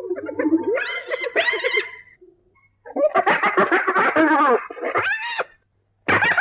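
Spotted hyena giggling: bouts of rapid, choppy, high-pitched laugh-like calls. One bout runs through the first two seconds, a longer one follows a second later, and another begins near the end.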